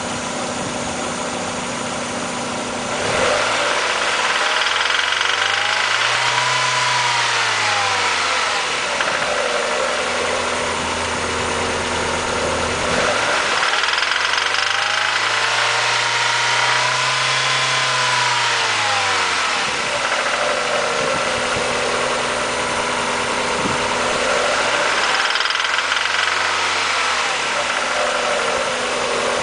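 Mazda Miata's four-cylinder engine idling and revved three times, each rev climbing and falling back over several seconds, the last one smaller. The uploader takes the engine's knock for rod knock, a worn connecting-rod bearing.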